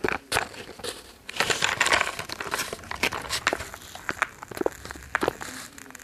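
Plastic blister packaging of a Mighty Beanz six-pack crinkling, with many small irregular clicks and taps as the toy beans are worked out of it.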